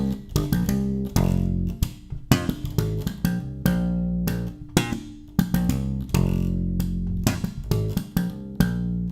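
ESP LTD B-155DX electric bass played alone: a quick repeating line of plucked notes, some clipped short and some held, in short phrases with brief gaps between them.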